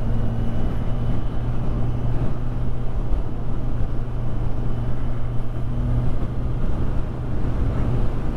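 Kawasaki Ninja 1000SX inline-four engine cruising at a steady speed, heard from the rider's helmet as one even engine note over wind and road noise.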